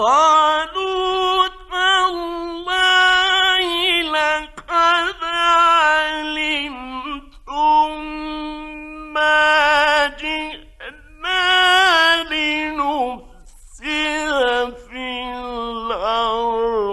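A male Quran reciter chanting in the melodic Egyptian mujawwad style. His high voice holds long notes with wavering ornamented turns, broken by short pauses for breath. The recitation starts right at the beginning, after a silence.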